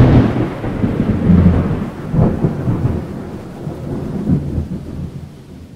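Thunder: a loud crack at the start, then a rolling low rumble with a few more cracks, fading away over several seconds.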